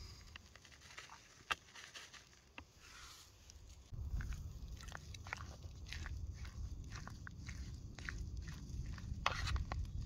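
Knife cutting and chopping kebab ingredients on a board: irregular short cuts and taps. A low rumble comes in about four seconds in.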